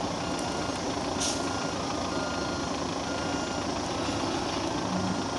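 Heavy diesel truck engine running steadily, with the repeated tones of a reversing beeper and a short hiss about a second in.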